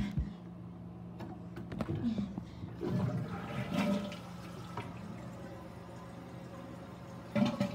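A toilet flushing, the water rushing most strongly between about two and four seconds in, over a steady low hum. Sharp knocks near the start and again near the end.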